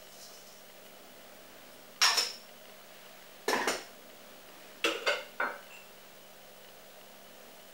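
Sharp clinks and knocks of kitchen containers set down and picked up on a counter, a metal salt shaker and a glass spice jar: one about two seconds in, another a second and a half later, then three quick clinks close together.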